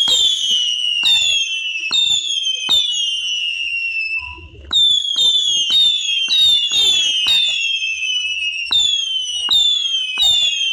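Whistling fireworks going off one after another. Each starts with a sharp pop and gives a shrill whistle that slides down in pitch, and the whistles overlap. There is a short break about four seconds in before a denser run.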